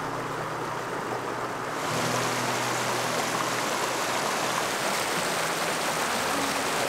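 Rushing stream water, a steady hiss of flowing water. About two seconds in it turns brighter and fuller, like a small waterfall splashing over rocks.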